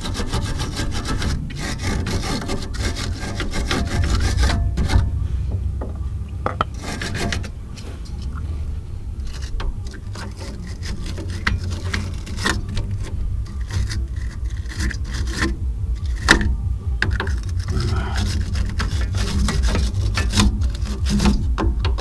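Hands and a wrench working on a Mazda 6's front suspension at the stabilizer link: irregular metallic clicks and scraping over a steady low rumble.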